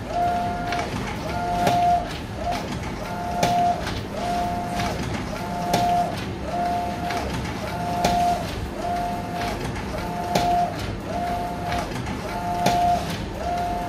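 Epson SureColor F570 sublimation printer printing: the print-head carriage sweeps back and forth with a rising-and-falling motor whine about once a second, with a sharp click on about every second pass.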